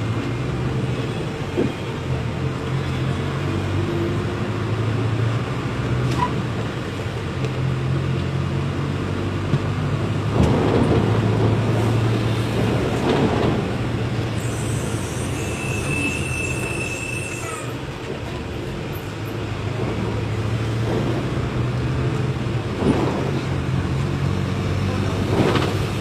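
Volkswagen 17.230 OD bus engine running as the bus drives, a steady low drone that swells and eases. A brief high whine is heard near the middle.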